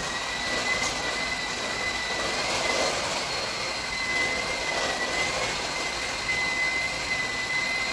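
Handheld electric mixer running steadily with a high-pitched motor whine, its beaters whisking cake batter in a stainless steel bowl.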